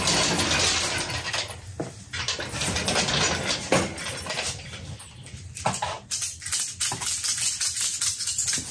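Background music with rattling percussion, over a few sharp metallic clanks from a steel engine hoist and chain being handled.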